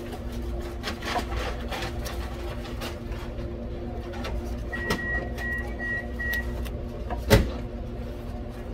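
Small clicks and rustling of wiring and wire nuts being twisted together by gloved hands, over a steady machine hum. About halfway through come four short high beeps, and near the end there is one sharp knock, the loudest sound.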